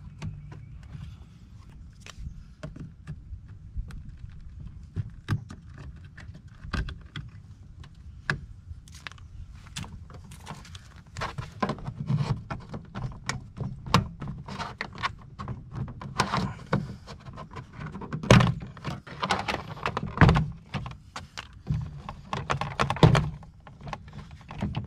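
Plastic door trim panel of a 2013 Honda Fit being pried off its retaining clips with a plastic trim tool: a run of clicks, knocks and pops. They are scattered at first and grow denser in the second half, with the loudest knocks near the end as the panel comes free.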